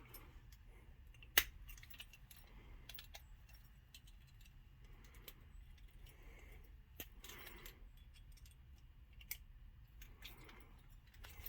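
Faint, sparse metallic clicks and taps of small padlock parts and tools being handled during assembly, with one sharper click about a second and a half in.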